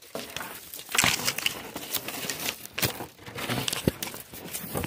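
Dry sticks and twigs crackling, snapping and scraping as they are handled and brushed right against the microphone: a dense run of irregular crackles with a few sharper snaps.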